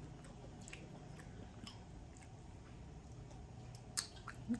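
Close-up chewing of barbecue ribs, with scattered wet mouth clicks and smacks. There are two sharper, louder smacks near the end as a rib is bitten into.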